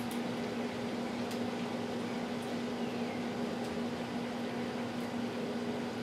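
Steady mechanical hum with a constant low tone over a faint hiss, and a few faint ticks.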